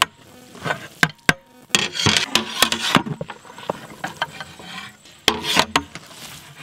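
Cooked biryani rice and mutton being turned over with a utensil in a large aluminium cooking pot: scraping and rustling of the rice, with several sharp knocks of the utensil against the pot.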